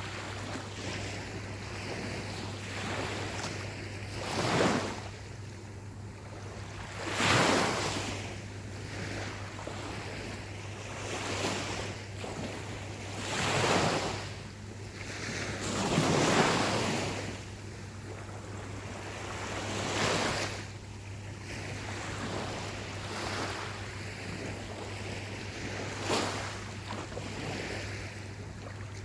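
Gentle ocean waves breaking and washing up the shore, with a surge of surf every few seconds and a steady low hum underneath.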